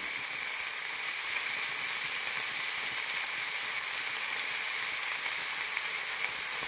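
Beef steak pieces frying with tomato and onion in a pan, a steady sizzle.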